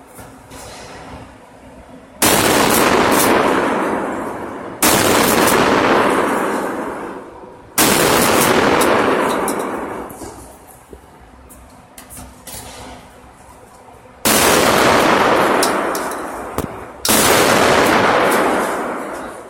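Five shotgun shots at clay targets, each ringing off in a long echo. The first three come about two and a half to three seconds apart; the last two follow after a pause of several seconds.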